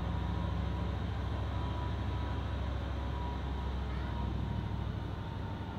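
A heavy engine running steadily: a deep low rumble made of rapid even pulses, with a faint thin whine above it.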